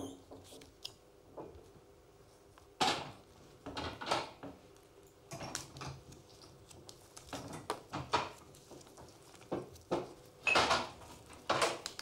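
Knives working raw turnips at a table: a series of irregular short rasping scrapes and crunches, one every second or so.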